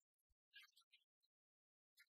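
Near silence, with a few faint, short high-pitched clicks.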